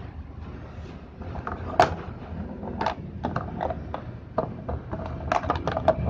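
Scattered plastic clicks and knocks as the top panel and lid of a Daewoo top-loading washing machine are handled and fitted back together, over a low steady rumble. The sharpest knocks come a little under two seconds in and just before the end.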